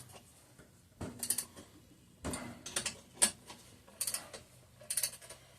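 A 3/8-inch-drive socket ratchet clicking in short, irregular bursts while the exhaust fasteners are cranked down tight into cast iron.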